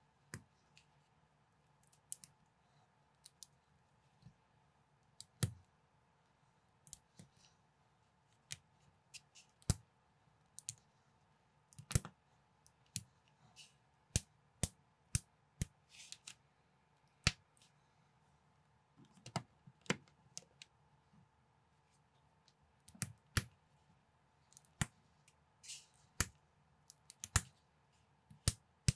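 Small plastic building bricks (LEGO-compatible) clicking and snapping together as they are fitted by hand: irregular sharp clicks, sometimes in quick clusters, with short pauses between.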